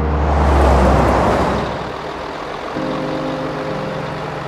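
Cartoon vehicle engine sound effect: a rushing whoosh that swells and fades in the first two seconds as the vehicle drives by, then a steady engine hum.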